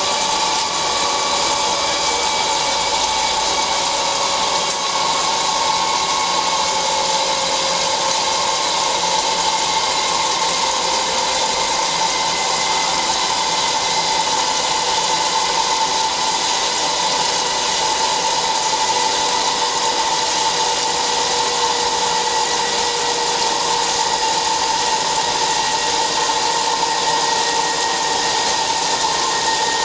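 DHL-1120x2000 CNC flat-bed lathe machining a part: a steady mechanical running noise, with several faint tones that slide slowly lower in pitch.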